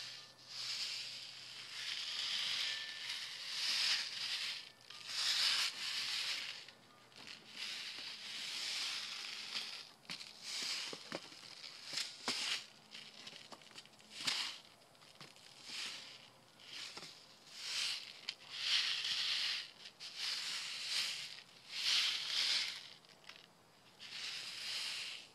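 Turnip seeds sliding and rattling inside a seed packet as it is shaken and tilted side to side. It comes as a series of hissing swishes one to two seconds apart, with a few sharp clicks about halfway through.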